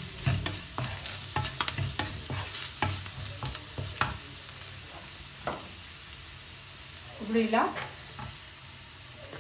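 A spoon stirring and scraping spices and ginger-garlic paste into onion, capsicum and green chillies frying in oil in a pan, with quick clicks against the pan for the first four seconds or so over a low sizzle that carries on after the stirring eases.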